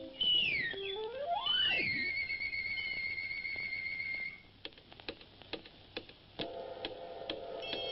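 Electronic sound-effect score: whistling tones slide downward, then one slides up and holds as a warbling whistle. It cuts off after about four seconds, a few sharp ticks follow, and a steady humming chord comes in near the end.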